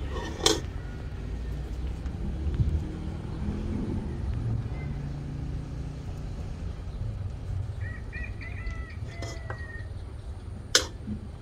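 Low steady outdoor rumble with two sharp clicks, one about half a second in and a louder one near the end, and a few short, faint high chirps around eight to nine seconds in.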